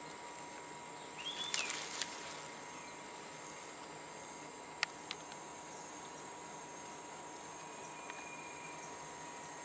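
Forest insects keeping up a steady, high-pitched drone, with a steady lower tone beneath it. A brief burst of noise comes about one and a half seconds in, and a single sharp click near the middle.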